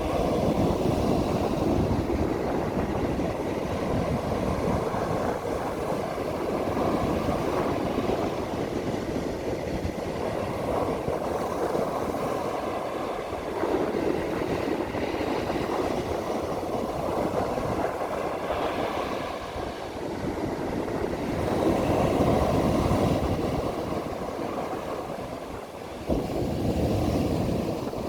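Ocean waves breaking and washing up a beach: a continuous rushing surf that swells and eases every few seconds as each wave comes in.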